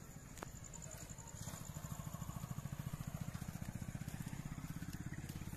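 Tata Altroz's 1.2-litre three-cylinder petrol engine idling, a steady low pulsing that grows louder a little under two seconds in.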